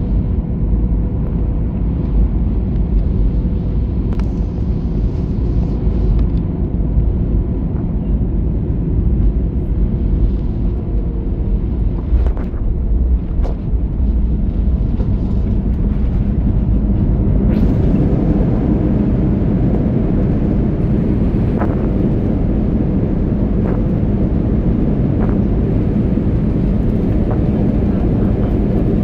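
Airbus A320 jet engines and airframe making a steady low rumble, growing louder about two-thirds of the way in, with a few short clicks and knocks.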